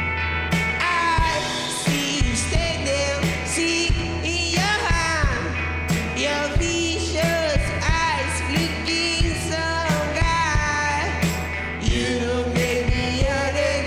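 Live garage rock band playing with a sung vocal line over drums, bass and electric guitar.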